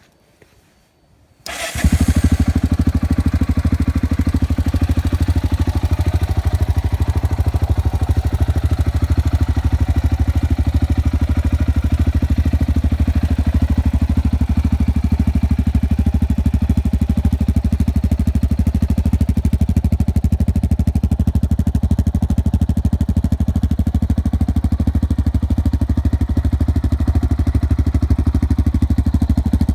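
Yamaha XT660Z Ténéré's single-cylinder four-stroke engine, fitted with twin Barrett aftermarket exhausts, starting up suddenly about a second and a half in and then idling steadily.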